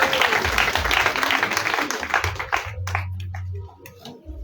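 Crowd applauding, the dense clapping thinning out and dying away about two and a half to three seconds in.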